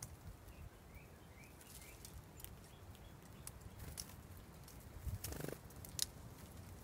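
Small birds feeding at a seed feeder: faint scattered clicks of pecking and hopping on the seed, a few soft high chirps in the first two seconds, and a short rustle of wings a little after five seconds.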